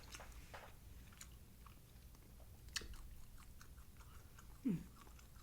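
Close-miked chewing and mouth clicks of a person eating, with a short falling vocal sound, like an "mm", about four and a half seconds in.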